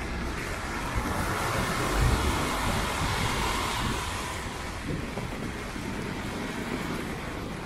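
Traffic on a rain-soaked city street: tyres hissing on wet asphalt, swelling between about one and four seconds in and then easing off, over a steady low traffic rumble.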